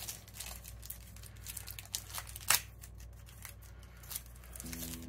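Thin plastic film crinkling and tearing as it is peeled off a phone battery, with a sharper snap about two and a half seconds in. Background music comes in near the end.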